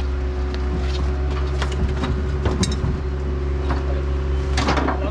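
A motor engine running at a steady speed, heard from on board, with a few light knocks and rattles over it.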